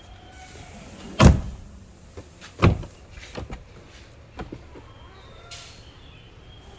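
Two loud knocks about a second and a half apart, followed by several lighter clicks and rattles, over a low steady hum.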